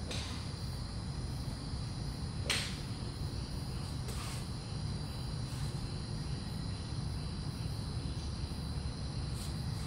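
Golf clubs striking balls off driving-range mats: sharp clicks, the loudest about two and a half seconds in, others near the start, about four seconds in and faintly near the end. Under them, a steady low hum and the chirring of insects.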